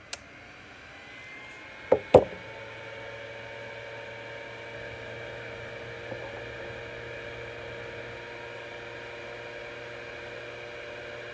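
Electric heat gun running, its fan blowing hot air to heat a pipe stem's tenon so it can be expanded; the blower noise builds up over the first few seconds and then holds steady with a faint whine and hum. About two seconds in come two sharp knocks.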